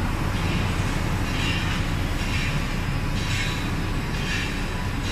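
Electrostatic powder-coating line for brake pads running: a steady low machine drone from the conveyor and equipment, with a hiss that comes back about once a second.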